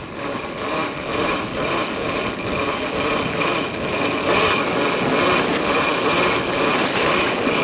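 Steady rushing noise of wind on a sailboat's deck while the sail is being hoisted.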